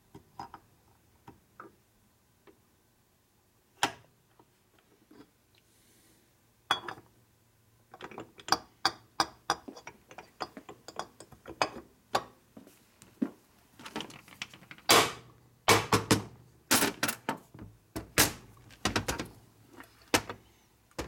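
Metal engine parts and hand tools clinking and knocking against a motorcycle crankcase as it is worked on by hand. A few scattered clicks at first, then from about eight seconds in a dense run of sharp metallic knocks and clinks.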